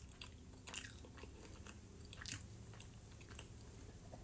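Close-miked chewing of a mouthful of fried potatoes: soft, wet mouth noises with a few sharper clicks, the loudest about a second in and just after two seconds.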